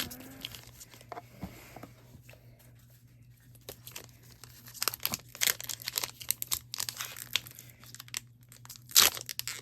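Crinkly packaging, likely a Pokémon booster pack's wrapper, being torn open and crumpled in a series of sharp crackles. There is a lull about two to four seconds in, and the loudest crackle comes near the end.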